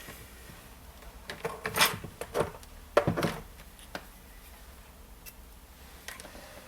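Light clicks and taps of small tools, such as meter probes, being handled on a repair bench, in short clusters with a few single taps after.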